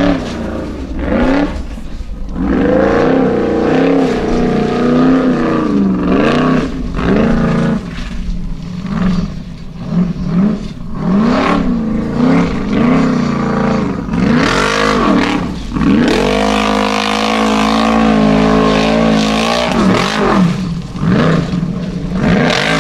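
Unlimited-class Formula Offroad buggy's engine revving hard under load as it climbs a steep gravel hill on paddle tyres, the revs rising and falling again and again with longer stretches held high.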